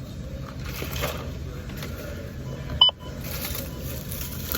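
Self-checkout barcode scanner beeping as items are scanned: one short beep nearly three seconds in and another at the very end, over steady store background noise.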